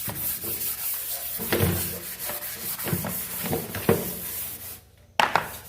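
A sink being scrubbed: irregular rubbing strokes that stop near the end, followed by one short scrape.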